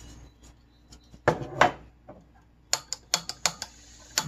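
Two loud knocks, then a quick run of sharp clicks as a gas canister backpacking stove is lit. The burner's steady hiss starts about three seconds in.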